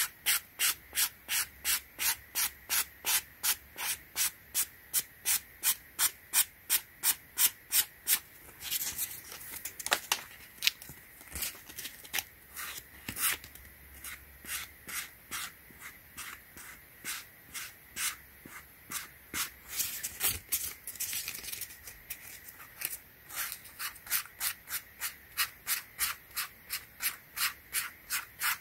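Sandpaper rubbed back and forth by hand over the scratched EVA foam of a Yeezy Foam Runner, sanding the scuffs smooth, in quick regular strokes about three a second. The strokes slow and turn irregular for a few seconds about a third of the way in, and again about two-thirds in.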